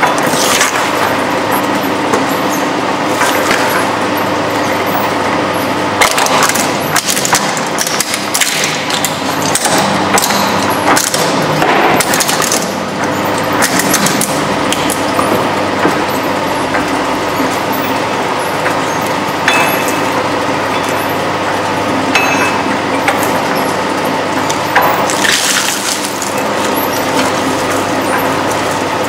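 Dual-shaft shredder's motor running steadily while its interlocking cutter discs crush and tear a series of items: a small carton, soft red food, then a pineapple near the end. Repeated crunching and cracking sounds ride over the machine's hum.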